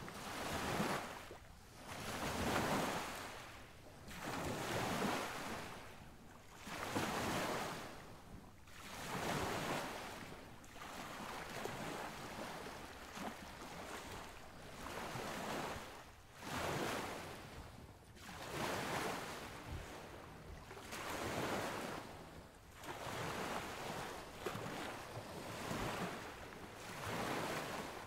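Sea surf washing in and out: a hiss of breaking waves that swells and fades about every two seconds.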